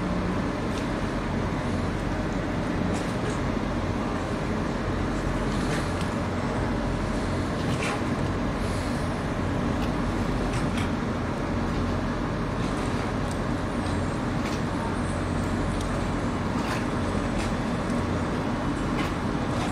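Steady low engine rumble with a constant hum, and a few faint clicks scattered through it.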